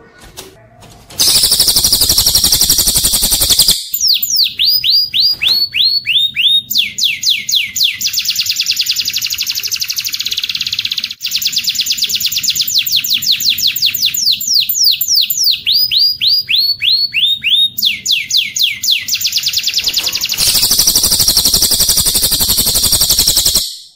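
Songbird song from a cililin-and-canary training recording: fast rows of downward-sweeping high notes and rolling trills, with a dense high trill near the start and again near the end. It starts about a second in and stops just before the end.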